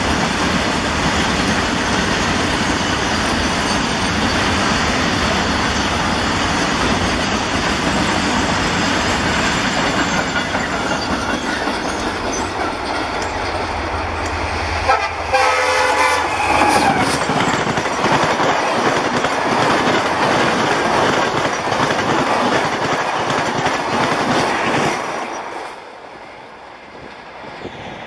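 An EMD WDP-4 diesel locomotive hauling a Shatabdi Express passes at high speed: a loud, steady rush of engine and wheels on the rails, with the horn sounded in short blasts about halfway through. The noise drops away sharply near the end as the train goes by.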